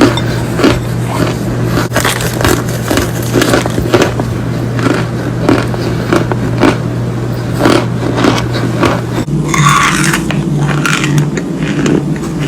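Close-up crunching of a brittle material, repeated sharp crunches about one or two a second over a steady low hum. The hum and the character of the crunches change about nine seconds in.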